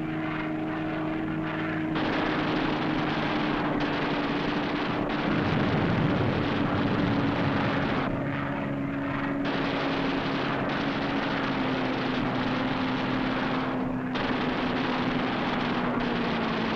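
Propeller aircraft engine droning steadily, a loud roar with a hum that sinks slowly in pitch.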